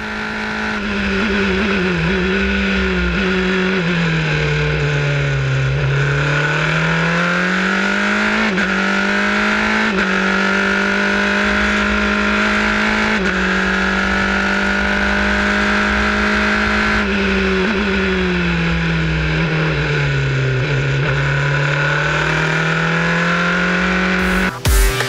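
Formula 3 race car's engine heard from the onboard camera, running hard at high revs. Twice the engine note drops as the car slows for a corner, then climbs back as it accelerates out.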